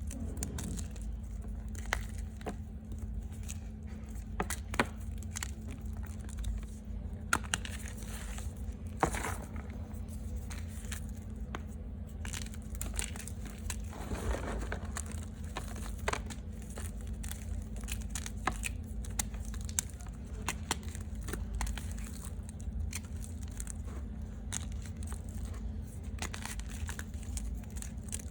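Reformed gym chalk being bitten and chewed close to the microphone: irregular sharp crunches and crackles over a steady low hum.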